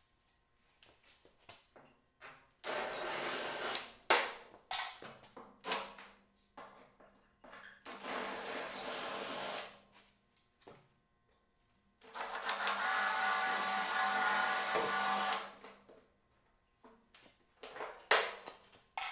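Cordless drill (DeWalt 20V Max) drilling out the aluminum pop rivets that hold the trailer trim, in three runs of about one and a half, two and three and a half seconds, the longest with a steady motor whine. Short clicks and taps of metal fall between the runs.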